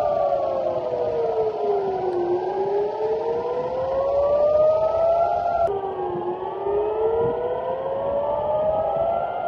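Civil-defense air raid sirens wailing, warning of incoming missiles. The pitch slowly falls and rises in cycles of a few seconds, with more than one siren sounding out of step, and the sound jumps abruptly a little past halfway.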